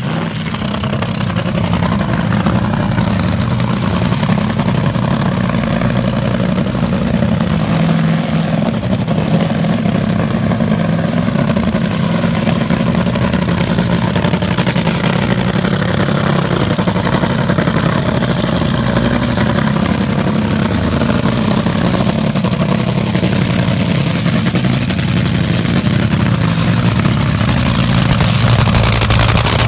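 Top Fuel dragster's supercharged nitro-burning V8 idling loudly and steadily, a little louder near the end.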